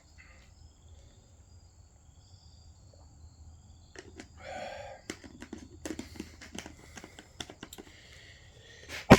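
Handling noises: scattered clicks and crinkling, with one sharp knock about nine seconds in. Faint crickets chirp during the first few seconds.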